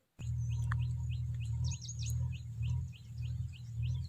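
Birds chirping outdoors in short, evenly repeated notes, about three a second, with a few quicker higher notes mixed in, over a steady low rumble. The sound starts just after the opening moment, following a brief silence.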